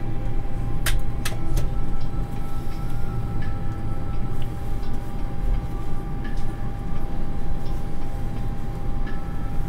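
Airliner cabin noise while taxiing after landing: a steady low rumble from the engines and wheels on the taxiway, with a thin steady tone and a few sharp clicks about a second in.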